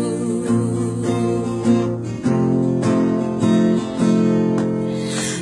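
Strummed acoustic guitar playing the song's accompaniment between sung lines, with chords changing about once a second.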